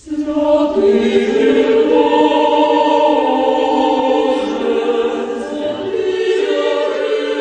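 A church choir singing slow, sustained chords, starting abruptly.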